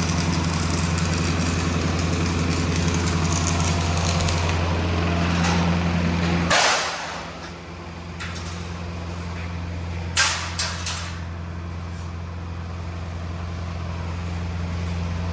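An engine running steadily at idle. About six and a half seconds in there is a short rushing scrape, and a few sharp metallic clanks follow about ten seconds in.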